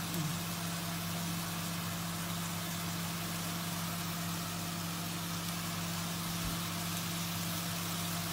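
Ginger, garlic and onion frying in oil in a metal wok, a steady soft sizzle, under a louder steady low mechanical hum that stops just after the end.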